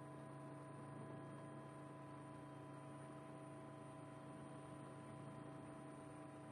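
Near silence with a faint steady hum made of several unchanging tones.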